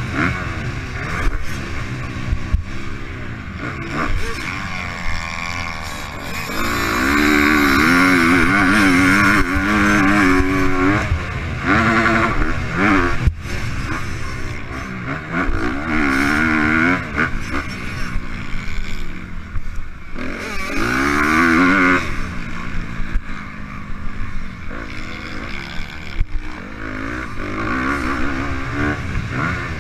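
On-board dirt bike engine at race pace, the revs repeatedly climbing high and dropping back as the rider works the throttle and gears. Rough wind noise and frequent knocks run under it.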